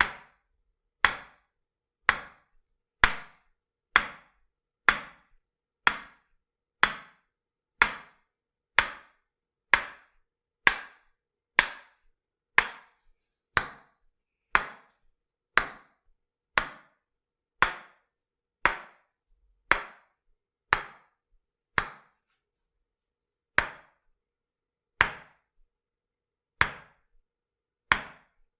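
Tok-sen massage: a wooden mallet tapping a wooden stick held against the body, giving sharp woody knocks about once a second. There is a short pause about three-quarters through, and the strikes come a little slower after it.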